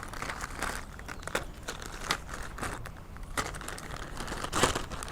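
Plastic packaging crinkling and rustling, with small irregular crackles, as the plastic pieces of a cable management kit are handled. The loudest rustle comes about four and a half seconds in.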